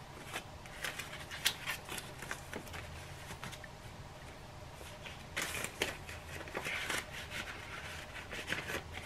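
Paper banknotes being handled and slid into a cash envelope in a binder: soft rustling and flicking with scattered small clicks, and two brief louder rustles past the middle.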